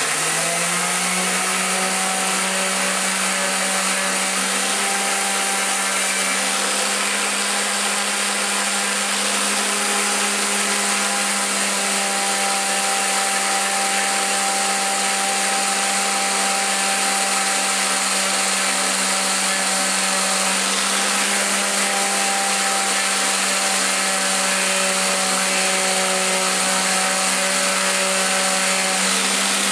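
Electric random orbital hand sander running steadily, sanding excess baked polymer clay flush on a small wooden piece.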